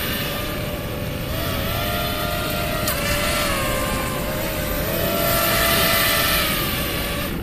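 Four-motor radio-controlled air boat running across the water: a steady whine from its motors and propellers that steps up and down in pitch with the throttle and is loudest about six seconds in. A short click comes about three seconds in.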